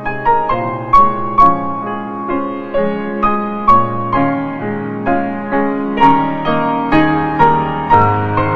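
Background piano music: a gentle melody of struck notes, about two notes a second.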